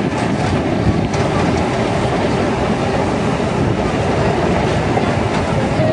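Narrow-gauge train running along the track, heard from an open passenger carriage: a steady rumble of wheels on rails with faint irregular clicks.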